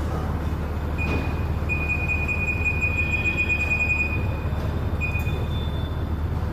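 A new motorcycle tyre being inflated from a shop air line over a steady low hum, with a thin high-pitched squeal starting about a second in that stops, then returns briefly. The tyre is being filled past normal pressure so its bead seats on the rim.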